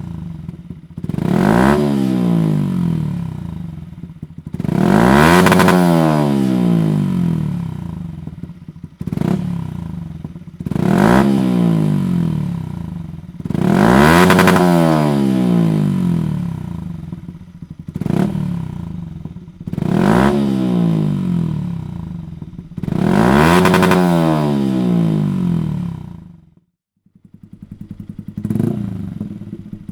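Yamaha MT-125's single-cylinder four-stroke engine breathing through a Dominator full aftermarket exhaust system, revved hard again and again. About eight sharp rises in pitch each fall back toward idle, and the sound drops out briefly near the end.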